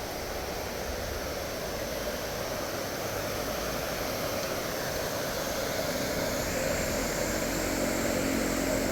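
Large waterfall: a continuous rush of falling water that grows gradually louder.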